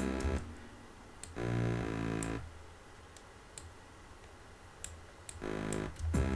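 Synth bass from FL Studio's 3x Osc, still without any filter wobble: playback with drums stops right at the start, then a single bass note sounds for about a second, about a second and a half in, and another shortly before the end, with a few mouse clicks in the quiet between them. Playback starts again at the very end.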